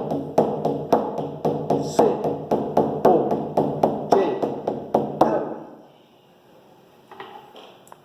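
Drum beaten in a steady quick rhythm, about four to five strokes a second, each stroke ringing; the drumming stops about five seconds in and dies away, with a few faint knocks near the end.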